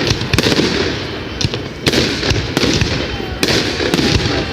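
Fireworks going off in a dense, continuous crackle, broken by many sharp bangs several times a second.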